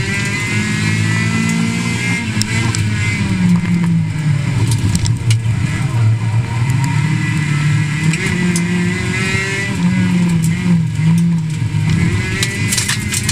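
Rally car engine heard from inside the cabin, rising and falling in pitch as it accelerates hard and shifts through the gears, with occasional sharp knocks of gravel hitting the car's underside.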